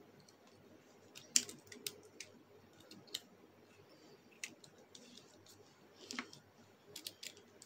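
Small plastic clicks and snaps of a Bakugan figure's hinged panels being folded shut by hand into its ball form: about a dozen sharp, irregular clicks, the loudest about a second and a half in.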